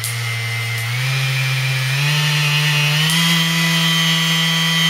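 Small variable-speed palm sander running in the air with no load, its whine stepping up in pitch about once a second as the speed is turned up toward high.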